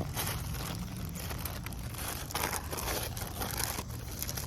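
Food packaging crinkling and rustling in irregular bursts as it is handled.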